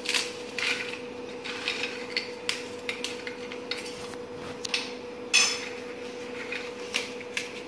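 Marigold biscuits being snapped by hand over a glass bowl: irregular crisp cracks and clicks of pieces falling onto the glass, the sharpest about five seconds in, over a steady faint hum.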